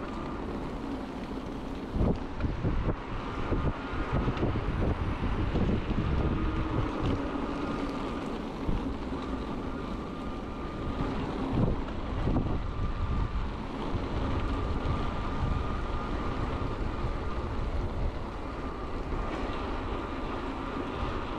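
Ride noise from an electric mountain bike on a gravel towpath: wind buffeting the microphone and tyre rumble, with a few bumps and a faint steady whine.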